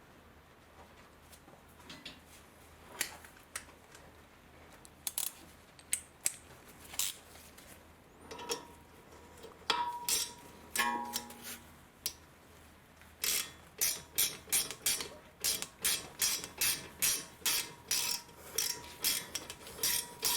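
Socket ratchet clicking as the brake caliper's Allen bolts are run in, with scattered metal taps and clinks at first, then past the middle a steady run of clicks, about three a second.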